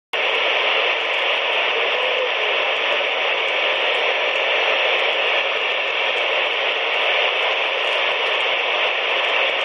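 CB radio tuned to channel 19 (27.185 MHz), giving out a steady static hiss through its speaker; the hiss cuts in abruptly at the start and stops just before the end.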